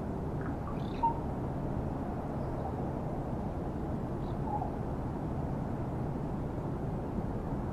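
Raven giving a few short, soft calls: a sharp click-like note about a second in and a brief low note past the middle. A steady low rumble of background noise runs under them.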